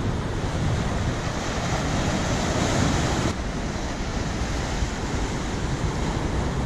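Ocean surf breaking and washing over coastal rocks, a steady rushing noise mixed with wind buffeting the microphone. It swells around three seconds in, then drops abruptly.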